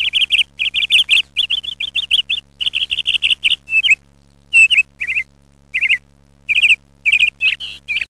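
Lovebird chattering: quick runs of high, shrill chirps for about four seconds, then shorter bursts of chirps with pauses between them.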